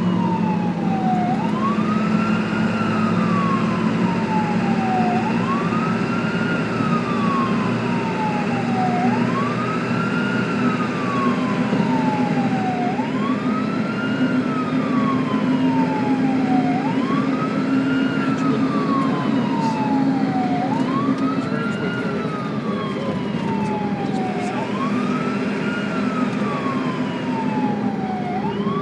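Ambulance siren in a slow wail, going up quickly and sliding down more slowly, about once every four seconds, seven or so times over, with a steady low drone underneath.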